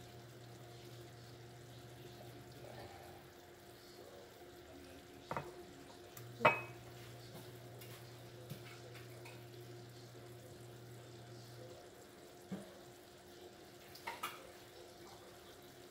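Kitchen clatter while diced tomatoes are drained: a few scattered clinks and knocks of metal cans and utensils, the loudest a sharp ringing clink about six and a half seconds in. Under them runs a faint low hum that cuts out about three seconds in, comes back with the loud clink, and cuts out again near twelve seconds.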